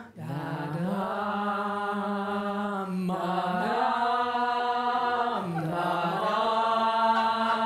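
Three women's voices singing together in a slow chant of long held notes. The pitch steps up about a second in, drops a little past the middle, and climbs again near the end.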